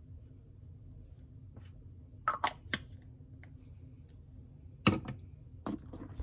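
Handling noise from the phone that is filming: a few sharp clicks and knocks about two seconds in, and a louder cluster near the end as a hand takes hold of it, over a low steady room hum.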